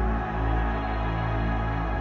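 Background music: a slow, dark ambient track of held low bass notes, with the note changing near the end.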